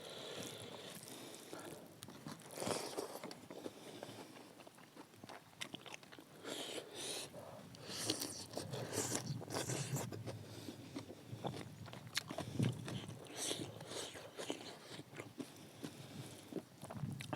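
A person chewing and biting food close to the microphone, in irregular bites with wet mouth sounds between them.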